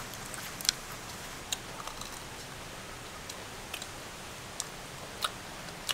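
Crisp fried pakora being chewed: a handful of short, sharp crunches spaced irregularly over a faint steady hiss.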